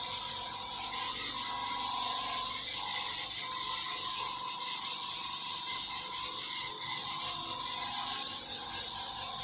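Hand sanding of a painted boat hull: a steady scratchy rubbing in even back-and-forth strokes, about one stroke a second.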